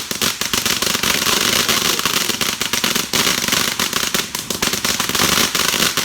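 Consumer firework going off in a rapid, continuous crackle of small sharp pops, which stops abruptly near the end.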